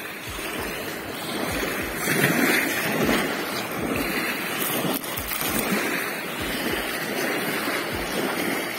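Steady wind and water noise on a pebble shore: small waves washing on the stones, with wind buffeting the microphone in low thumps.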